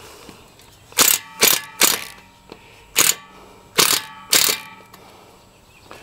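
Cordless driver run in six short, loud bursts, driving a Tapcon masonry screw home into brick, with a metallic ring on each burst.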